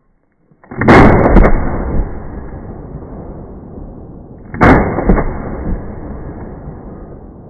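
Two shots from an HK G3A3 7.62×51mm battle rifle, a little under four seconds apart. Each is a sharp crack followed by a long rolling echo.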